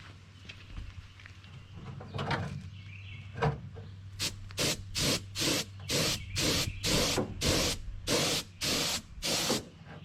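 Harbor Freight air spray gun hissing in short trigger pulls, about a dozen bursts at roughly two a second, as it lays primer on a car fender. The bursts start about four seconds in, after a few soft knocks.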